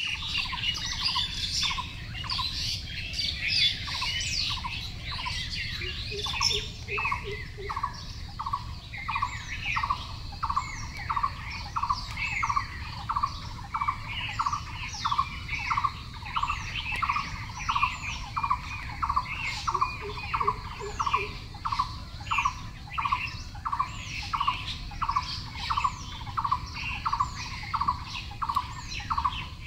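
Birds chirping and calling, with one short call repeating evenly a little under twice a second and many quick falling chirps over it.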